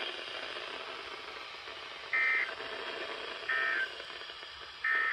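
Three short EAS end-of-message data bursts (SAME digital warbling tones), evenly spaced about 1.3 seconds apart over steady weather radio static. They mark the end of the warning broadcast.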